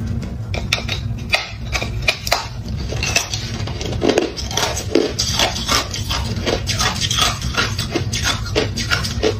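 Ice clicking and crackling as a large frosted block of ice is handled over a freezer drawer of ice cubes: irregular sharp clicks, several a second, over a steady low hum.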